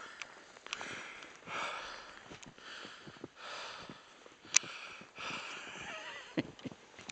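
Heavy breathing, a run of hard breaths in and out, with a few sharp clicks, the loudest about halfway through.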